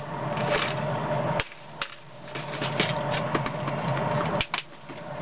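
Bedini pulse motor running: a steady mechanical hum with a held tone, scattered light clicks over it, and two brief dips in level.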